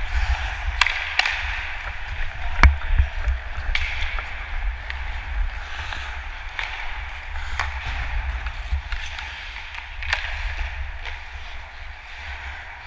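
Ice hockey skate blades scraping and carving on rink ice, with scattered sharp clacks of sticks and puck, the loudest about two and a half seconds in, over a steady low rumble.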